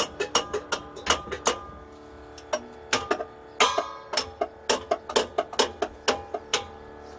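Background music: quick, irregular clicking percussion over held notes that change pitch.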